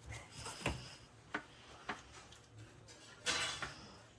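Kitchen utensils and cookware clicking and tapping, three sharp taps in the first two seconds, then a short louder scraping burst a little past three seconds.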